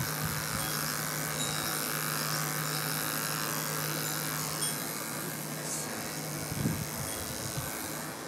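Electric dog grooming clipper with an 8.5 blade running steadily, buzzing as it is drawn through a small dog's coat. It stops about six and a half seconds in with a brief knock.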